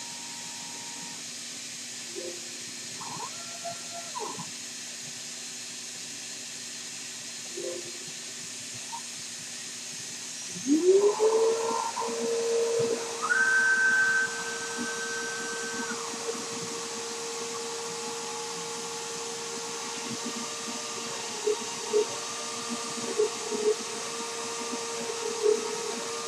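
A CNC 6040 router's 2.2 kW spindle spins up about ten seconds in: a whine rising in pitch, then holding steady. Before that come short pitched whirs from the stepper motors moving the axes. Once the spindle is running, there are loud bursts and sharp ticks as the machine moves and cuts.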